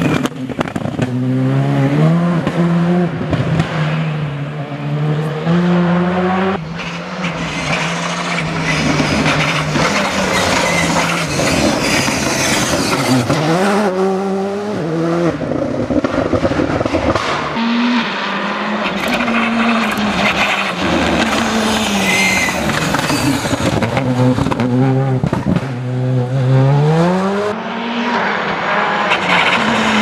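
Škoda Fabia R5evo rally car's turbocharged four-cylinder engine revving hard at full attack, its pitch climbing through each gear and dropping at every upshift. There are several runs, with fresh climbs about halfway through and again near the end.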